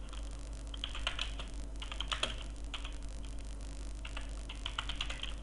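Typing on a computer keyboard: quick runs of key clicks with short pauses between them, over a low steady hum.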